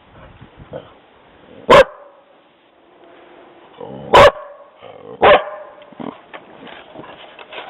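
Dog barking in alarm at a person walking past: three loud single barks a second or two apart, then a softer one.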